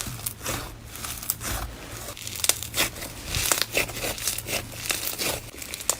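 Slime being pressed and worked by hand, giving a busy, irregular run of small crackles and crinkles.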